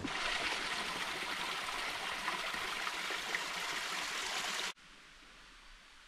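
Mountain stream rushing steadily over small cascades. It cuts off suddenly near the end, leaving only a faint background hush.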